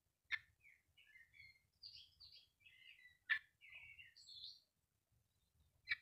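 A songbird singing a varied phrase of short chirps and warbled notes, broken by three sharp clicks, near the start, in the middle and at the end, which stand out louder than the song.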